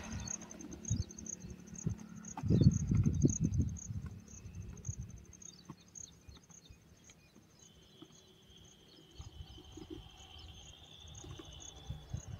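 Insects chirping in a steady high-pitched pulse, about two chirps a second, with a second insect buzzing more continuously for a few seconds past the middle. A low rumble comes and goes and is loudest between about two and four seconds in.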